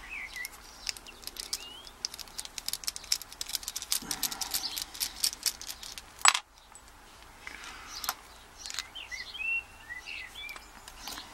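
Rapid metallic clicking and clinking of a padlock and small metal tools being handled, with one sharp metal clack about six seconds in. Birds chirp briefly at the start and again near the end.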